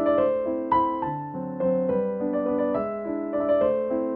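Background piano music, a new note every fraction of a second.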